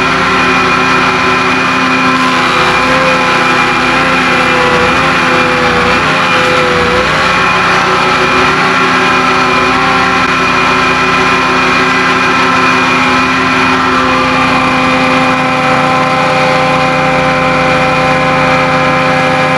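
Electric wood planer and shop dust collector running together: a loud, steady motor hum and whine with a slight wavering a few seconds in.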